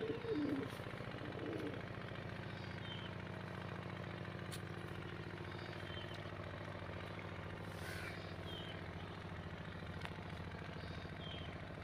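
A steady low engine hum, like an engine idling, runs throughout, with a few brief high chirps from small birds now and then.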